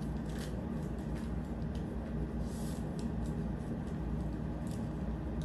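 Faint rustling and small clicks of hands working at the cord knot on a fabric tent-pole bag, over a steady low hum.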